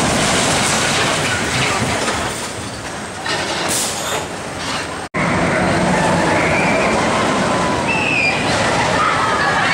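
Arrow Dynamics steel looping roller coaster train running along its track, a loud continuous roar of wheels on steel rail. The sound breaks off for an instant about halfway, and riders' screams rise over the roar in the second half.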